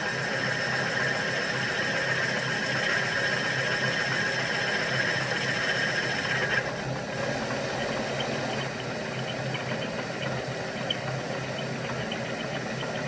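A milling machine running a boring head through a finishing cut on a tube hole in a steel boiler tube plate: a steady machine hum with a high whine over it. The whine drops away about six and a half seconds in while the machine keeps running.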